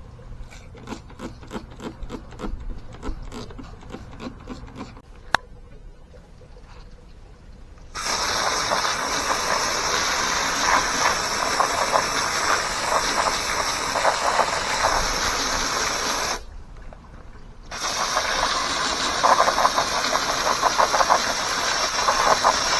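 Garden hose spraying water onto a bicycle frame, a loud steady hiss that stops briefly and starts again. Before it, a few seconds of quieter rapid ticking.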